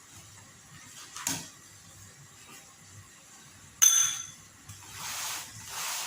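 A sharp metallic clink about four seconds in, like a utensil striking the chapati pan, with a brief ring. It is followed by a rhythmic hissing sizzle that swells about every 0.7 s, as the chapati frying in the pan is worked over.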